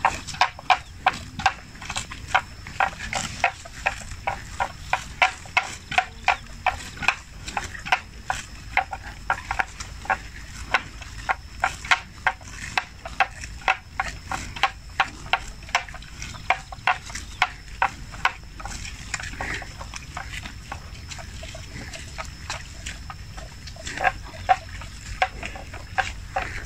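Water buffalo cropping and chewing grass: a fast series of crisp ripping bites, about two to three a second.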